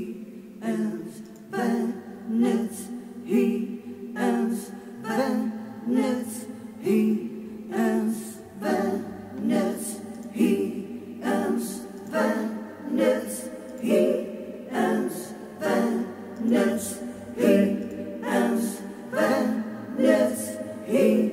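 Recorded playback of a layered, multitracked gothic choir of unaccompanied voices chanting in a steady rhythm, a new syllable about every 0.8 s, over a steady low held note.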